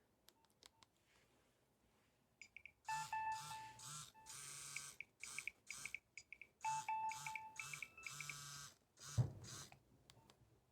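A Nokia 1650 mobile phone ringing with its vibrate alert on. A short bright beeping melody plays twice, each time over the low buzz of the vibration motor, with a pause in between. A single thump comes near the end.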